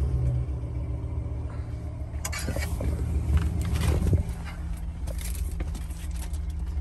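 Steady low rumble of a car engine idling, with a run of clicks and scraping handling noises from about two seconds in until about five seconds in.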